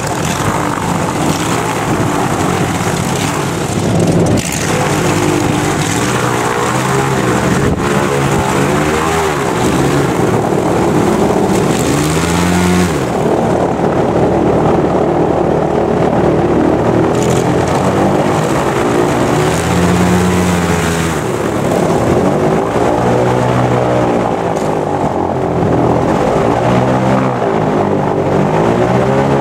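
Airboat engine and large air propeller running loudly, the pitch rising and falling as the engine is revved up and eased back several times, most often near the end.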